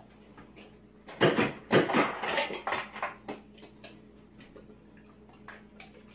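Refrigerator door dispenser rattling and clattering in several irregular bursts for about two seconds as a Great Dane works it with its mouth. After that there are only a few faint ticks.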